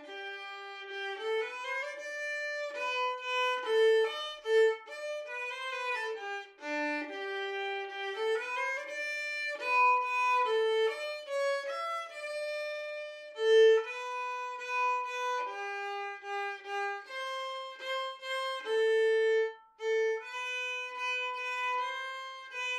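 Background music: a solo violin playing a melody, one held note at a time.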